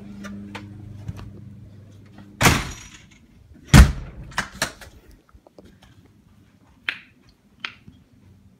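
A house door slams shut with a loud bang almost four seconds in, after a short rushing noise a second earlier. A few light clicks and knocks follow.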